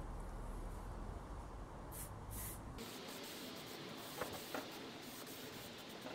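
Aerosol can of clear lacquer spraying: a short hiss about two seconds in, then a steady hiss from about three seconds on as the coat is drifted over the stickers.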